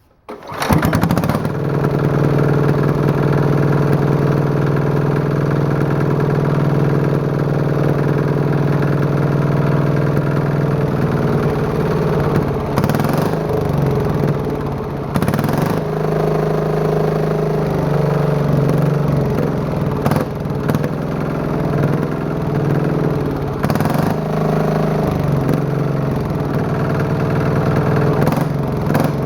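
Small diesel engine fitted with a straight pipe instead of a muffler, starting up about half a second in and then running loud and steady. Its speed wavers a little midway.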